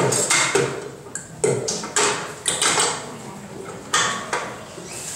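Stainless steel stand-mixer bowl clanking and scraping as it is handled on the mixer base: a quick series of knocks in the first three seconds and two more around four seconds. The mixer motor is not running.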